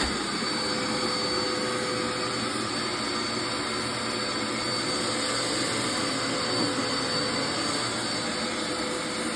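Vacuum cleaner motor running steadily at full speed, a constant rushing airflow with a thin high whine over it.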